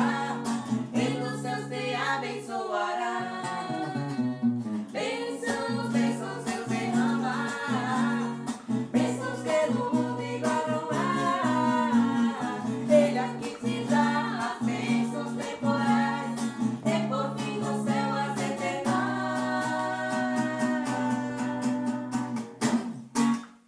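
Strummed acoustic guitar accompanying a man and a woman singing a hymn together; the song ends just before the close.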